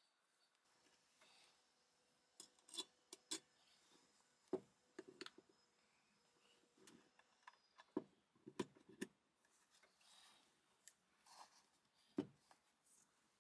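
Scattered sharp clicks and light knocks of the drill's metal housing halves and parts being handled and fitted together, a dozen or so with quiet gaps between.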